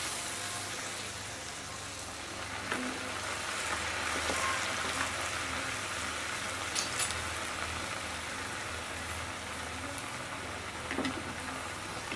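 Semolina batter deep-frying in hot coconut oil: a steady sizzle with an occasional small pop.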